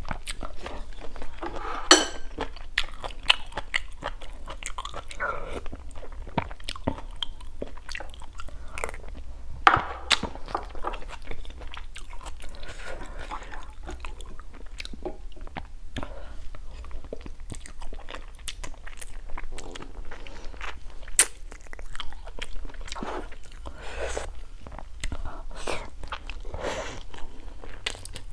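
Close-miked chewing and biting as a person eats stir-fried frog meat and okra: irregular crunches and mouth clicks.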